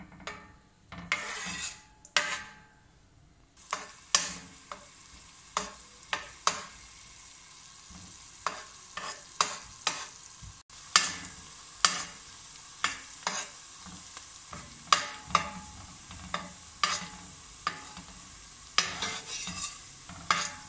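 Diced onions frying in oil in a stainless steel pot, with a sizzle that picks up about three and a half seconds in. A metal spoon scrapes and clinks against the pot as the onions are stirred, about once a second.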